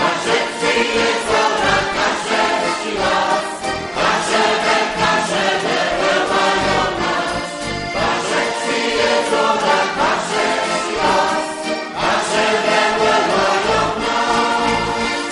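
A choir singing a Kashubian folk song.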